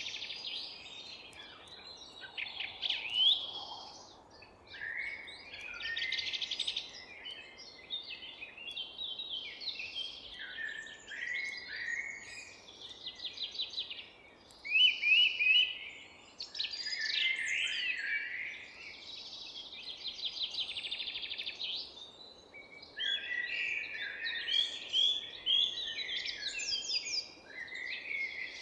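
Several songbirds singing and chirping at once, with overlapping trills and quick repeated notes, over a faint steady background hiss.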